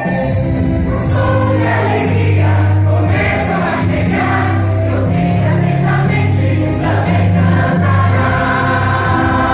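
A choir singing a Christmas cantata with musical accompaniment.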